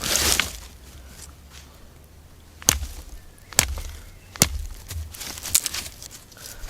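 Three sharp cracks of dry wood, about a second apart, among rustling of twigs and forest litter: sticks being snapped and handled.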